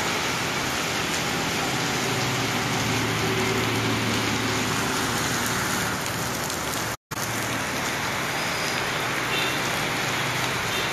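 Heavy rain falling steadily on a wet street, an even hiss, with faint road traffic under it. The sound cuts out for a moment about seven seconds in.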